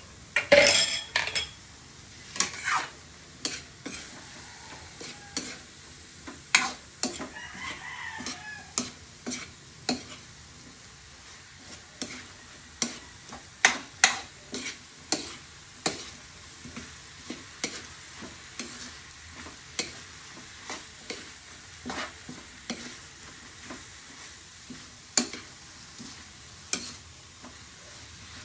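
Spatula stirring sliced bitter gourd in an aluminium wok, scraping and clicking against the pan about once or twice a second over a steady low sizzle, loudest in a cluster near the start.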